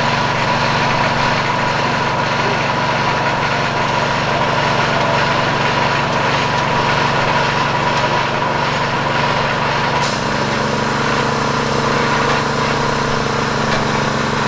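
An engine running steadily at a constant idle-like speed. About ten seconds in there is a faint click and its note shifts slightly.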